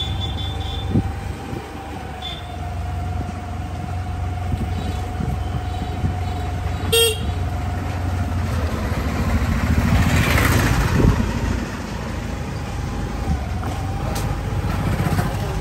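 Motorbike and scooter traffic in a narrow street: steady engine hum, a short horn toot about seven seconds in, and a motorbike passing close, loudest about ten seconds in.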